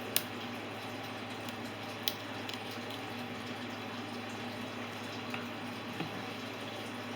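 Steady background hiss with a faint low hum, broken by two sharp light clicks about two seconds apart and a few fainter ticks later, from small things being handled on a work surface.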